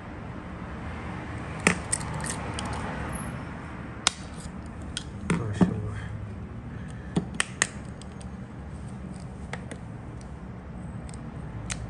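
A car key remote's plastic shell being pried apart with a flat-blade screwdriver to get at its weak coin battery. Several sharp plastic clicks and snaps come at irregular intervals, the blade and casing knocking as they work.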